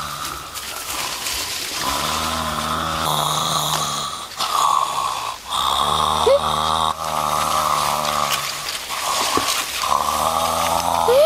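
A man snoring loudly: a run of long, drawn-out snores, each a second or two, with short breaks between them.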